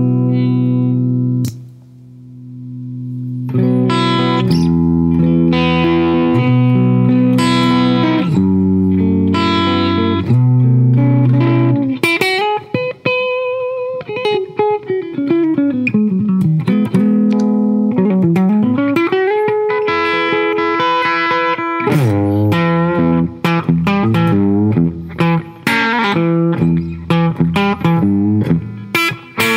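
Hollow-body electric guitar played through a Fairfield Circuitry Accountant compressor pedal that is switched on: held chords, a short drop about two seconds in, then chords, a single-note passage in the middle and chords again.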